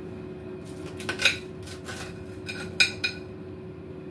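Metal cutlery clinking and scraping on a plate while a pizza is cut in half: a few sharp clinks with a short metallic ring, a cluster about a second in and another near the end. A steady low hum runs underneath.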